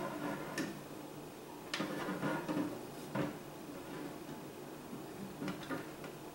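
A handful of light taps and clicks of metal tongs and hands on a clear plastic tarantula enclosure and catch cup.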